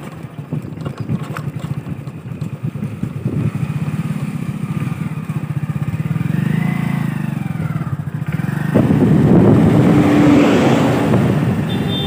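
Motorcycle engine running as it is ridden, a fast, even pulsing low drone. About nine seconds in the sound turns louder and noisier with a rush of wind and road noise.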